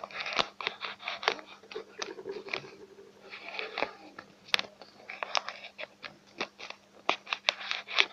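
Coloured pencil scratching across paper in quick, irregular strokes as waves are drawn on a folded paper boat, over a faint steady hum.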